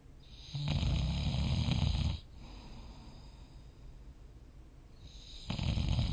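A person snoring in their sleep: one long snore about half a second in, lasting about a second and a half, then a quiet stretch of breathing, and a second snore starting near the end.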